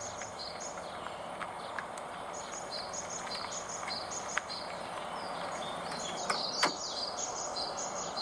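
Steady background noise with birds chirping: rapid, repeated high chirps throughout, and a few sharp clicks toward the end.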